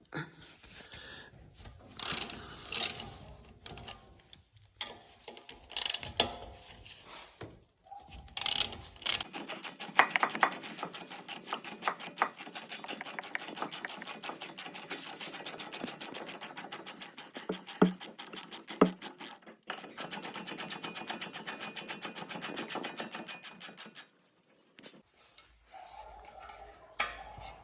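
Tools clattering and knocking against the brake caliper, then a ratchet wrench clicking rapidly and evenly for about fifteen seconds, with one short pause, as the 8mm hex caliper guide bolts on a BMW X3's front brake are undone.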